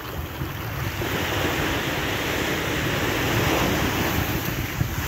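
Surf: small waves breaking and washing up the sand, swelling about a second in, with wind rumbling on the microphone.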